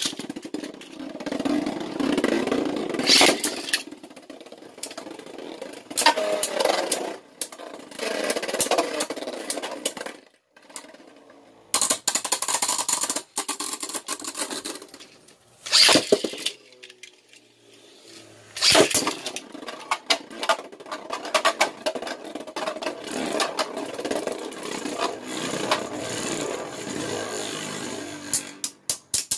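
Beyblade Burst spinning tops whirring and scraping across a plastic stadium floor and clattering into each other, with a few loud sharp knocks from hard collisions and two short lulls between rounds.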